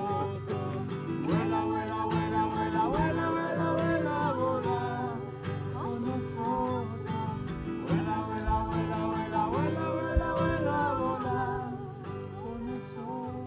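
A song: a voice singing a melodic line over acoustic guitar accompaniment.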